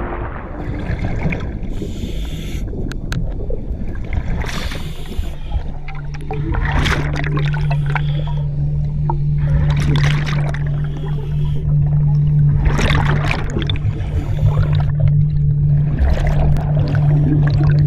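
Underwater sound through a GoPro's housing: a muffled water rumble with short hissing bursts of bubbles about every three seconds, typical of a scuba diver exhaling. A steady low hum joins about six seconds in.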